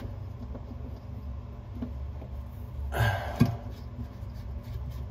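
Faint clicks and scrapes of hands fitting a flexible water supply line's compression nut onto a chrome angle stop valve, over a steady low hum, with a short thump about three seconds in.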